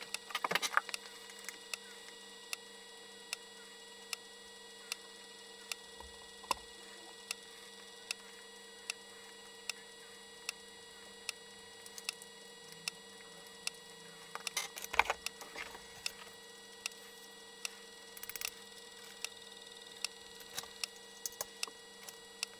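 3.5-inch floppy disk drive driven by an Arduino, writing an Amiga disk image to a double-density disk: the head steps with a short click about every 0.8 s, one cylinder at a time, with three quick clusters of clicks along the way, over a faint steady hum.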